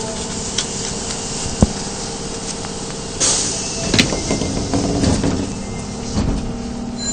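Subway car's sliding doors closing over the steady hum of the standing train. A short hiss of air comes about three seconds in, and a thump follows a moment later as the doors shut.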